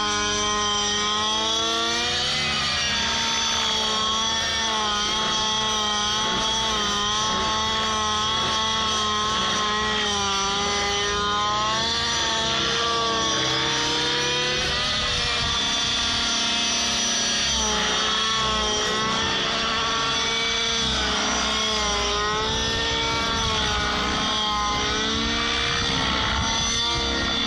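T-Rex 700 radio-controlled helicopter with a small two-stroke petrol engine running, its note wavering up and down continually as the rotor load changes.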